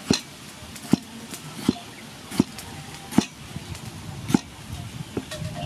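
A cleaver chopping tomato on a thick wooden chopping board: about seven knocks of the blade striking the board, a little under a second apart.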